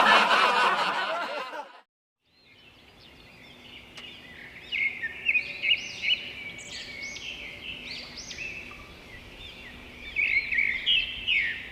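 A loud sound from the previous clip cuts off about two seconds in. After a short silence, a chorus of songbirds starts chirping and singing, with many quick rising and falling notes over a faint steady hum.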